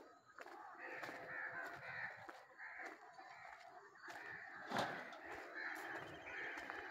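Birds calling again and again, with scattered clicks and one sharper knock a little under five seconds in.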